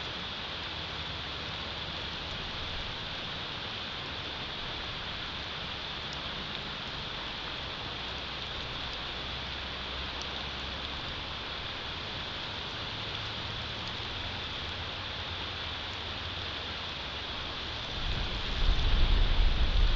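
Steady hiss of wind and snowstorm on an outdoor nest-camera microphone, with a low rumble underneath. About eighteen seconds in, a strong gust buffets the microphone with a much louder low rumble.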